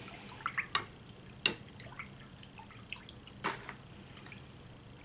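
Cleaning solution dripping and lightly splashing in a small container of soaking parts: scattered drips and small plinks, the sharpest about a second and a half in and again near three and a half seconds.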